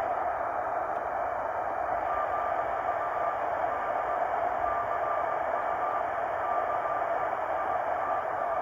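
Heathkit HW-8 CW transceiver's receiver audio: steady band hiss. About two seconds in, a faint Morse code tone starts keying on and off.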